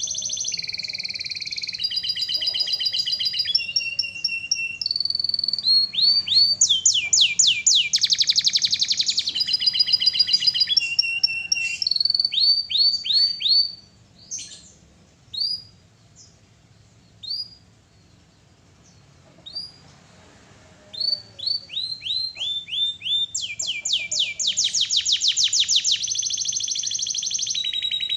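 Canary singing: long runs of fast trills and rapidly repeated chirping phrases. Midway the song thins to a few scattered single notes, then the rapid trilling resumes.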